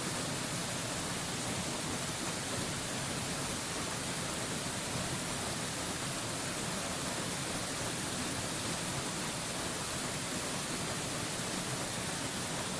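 Mountain waterfall rushing as a steady, even hiss with no breaks or changes.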